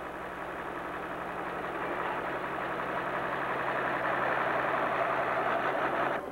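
International 1466 farm tractor's turbocharged diesel six running hard under full load while pulling a weight-transfer sled, growing steadily louder, then cut off abruptly near the end.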